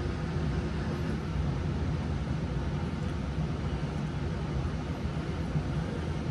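A steady low background rumble, with no distinct event standing out.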